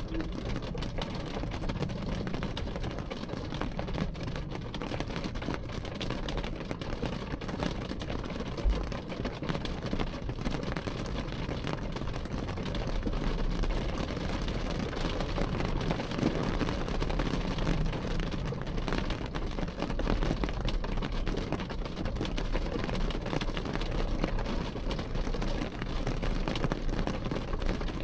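Rain pattering steadily on a window pane, heard from behind the glass, with a low rumble underneath. It grows a little louder about halfway through, and a single dull thump comes about nine seconds in.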